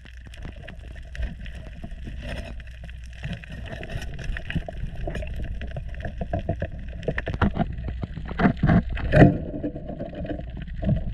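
Underwater sound picked up by a camera in its housing: a steady low rumble with many small clicks and crackles. A few louder knocks come about eight to nine seconds in as the spear and gloved hand work into a reef crevice.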